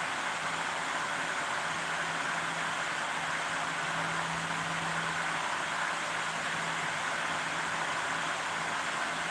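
Steady hiss with a faint low hum that fades in and out, the sound of a running appliance or machine.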